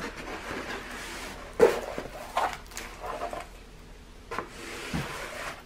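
A large rolled diamond painting canvas with its clear plastic cover sheet being unrolled and smoothed flat by hand: rustling and crinkling with a few sharp crackles, the loudest about a second and a half in.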